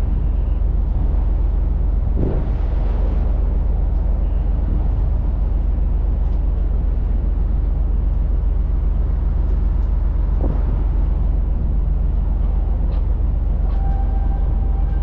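Strong wind rushing over the microphone on board a container ship, a loud steady low rumble with a rushing noise above it. A faint steady tone joins near the end.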